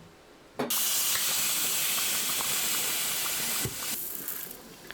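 A loud, steady hiss that starts suddenly about half a second in, holds for about three seconds, then cuts off sharply and trails away.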